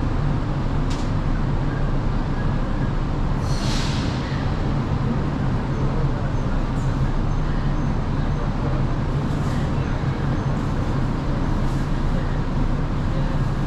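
Dalian Metro Line 12 train running, heard from inside the carriage: a steady low rumble of wheels and drive, with a short hiss about three and a half seconds in and a few faint clicks.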